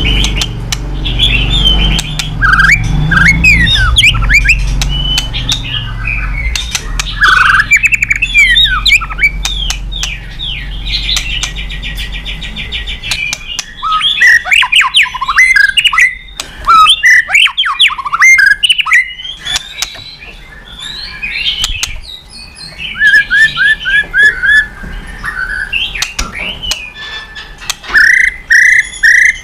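White-rumped shama (murai batu) singing vigorously: a varied run of whistles, sweeping notes, harsh squawks and clicks, with a fast buzzy trill about eleven seconds in and a quick series of short notes near the end.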